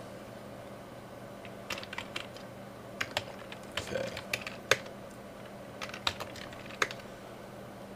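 Computer keyboard keystrokes: a handful of separate taps with pauses between them, over a faint steady hum.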